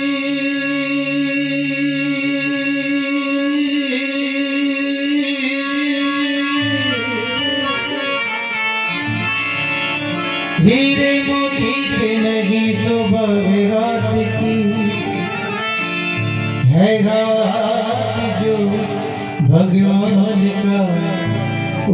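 A bhajan, a Hindi devotional song, performed live by a male singer with harmonium, keyboard and tabla. A long note is held for the first few seconds. Then the melody moves with sliding notes, and stronger phrases come in about ten, sixteen and nineteen seconds in.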